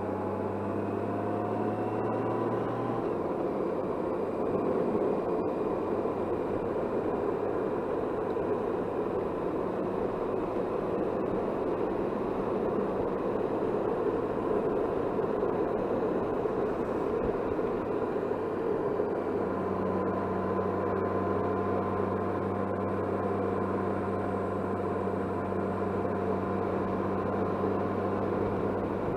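Touring motorcycle on the move: steady wind rush over the helmet-mounted camera, with a low steady engine hum underneath that is clearest in the first few seconds and again over the last third.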